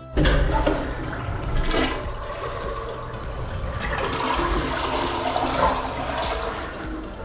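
Wastewater rushing and gurgling through a blocked sewage drain pipe as it clears, starting suddenly at the beginning.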